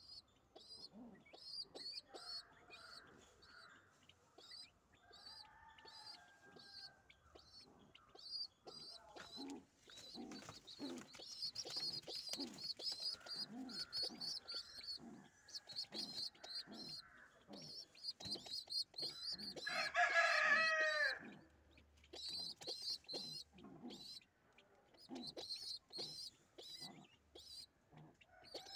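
Birds calling: a string of short, high chirps about two a second throughout, with lower, wavering calls at times. About twenty seconds in, one loud call falls in pitch over about a second and a half.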